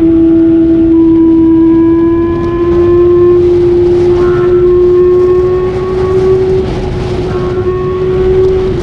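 Kawasaki ZX25R's 250 cc inline-four engine running at high revs while riding, its note held at a steady high pitch with only small rises and dips, over a rush of wind and road noise.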